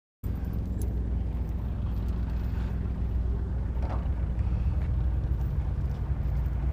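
A steady low engine rumble that cuts in abruptly a moment in and runs on evenly.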